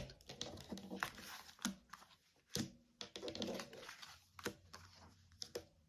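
Tarot cards being handled and laid out on a table: a few sharp clicks with soft sliding and brushing between them.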